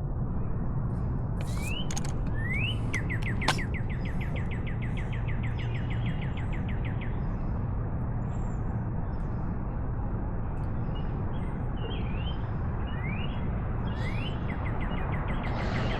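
A songbird singing twice: a few rising whistled notes that run into a fast, even trill. A single sharp click comes about three and a half seconds in, over a steady low background rumble.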